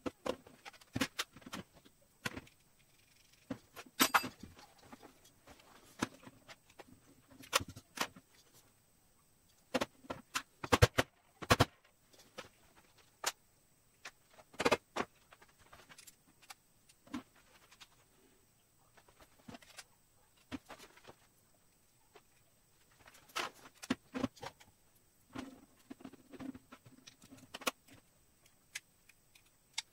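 Scattered clicks, clinks and knocks of small hardware and plates being handled, fitted together and set down on a bench during hand assembly, with a cluster of louder knocks about ten to twelve seconds in.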